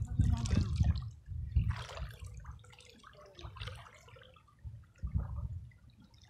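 Small waves lapping and splashing at the sandy shoreline in irregular washes, loudest in the first two seconds, over a low, gusty rumble of wind on the microphone.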